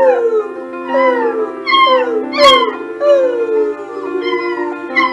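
A beagle puppy and a man howling back and forth in a string of short, falling howls, over steady background music.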